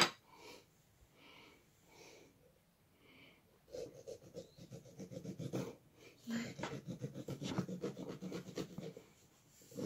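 A knife sawing through the wall of a hollowed pumpkin in quick rasping strokes, starting about four seconds in after a few faint scrapes.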